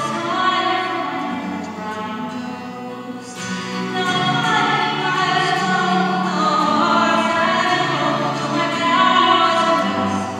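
A woman singing long, held notes over a twelve-string acoustic guitar strummed as accompaniment, in a Celtic folk song.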